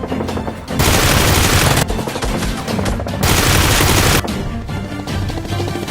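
Two bursts of rapid gunfire, each about a second long, over background music.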